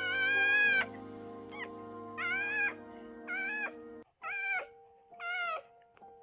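Newborn puppy crying: a series of about six short, high-pitched squeals, each under a second long.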